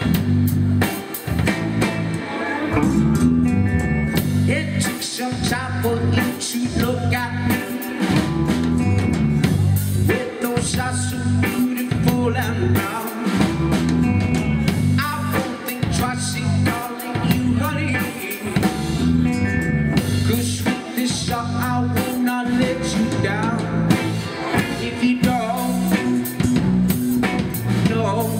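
Live rock band playing: a hollow-body electric guitar, a bass guitar and a drum kit keeping a steady beat, with a voice singing over them at times.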